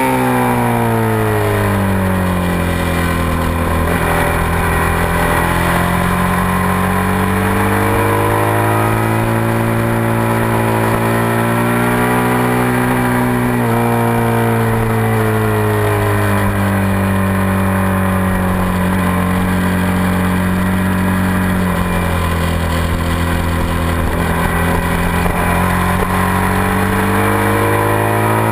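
2007 Suzuki SV650's 645 cc V-twin engine under hard track riding. The engine note sinks and climbs several times as the bike slows for and drives out of corners, with a few sudden drops in pitch. A steady rush of wind noise runs under it.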